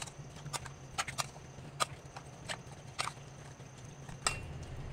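Raw chicken pieces being mixed by hand in a marinade in a stainless steel pot: irregular wet squelches and light knocks against the pot, about one or two a second, over a steady low hum.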